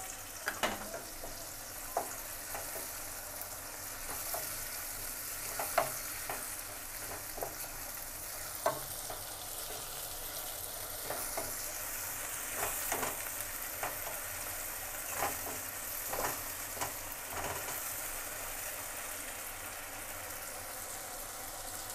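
Onions and capsicum with sauces sizzling steadily in a non-stick wok, with a wooden spatula clicking and scraping against the pan now and then as they are stirred.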